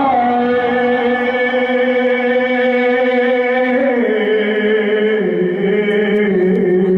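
A man singing a naat without instruments, holding one long note, then stepping down to a lower note about four seconds in and holding that one.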